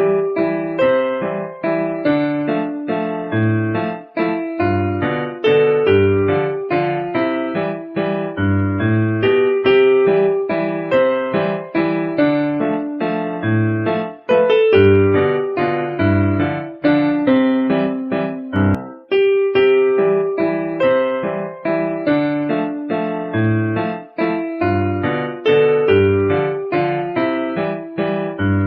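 Background music played on an electric piano: a steady, repeating melody of short notes in phrases of a few seconds.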